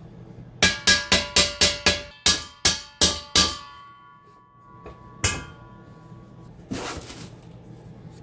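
A hammer striking metal: a quick run of about ten ringing blows, roughly four a second, then a single blow a couple of seconds later. A short rasping noise follows near the end.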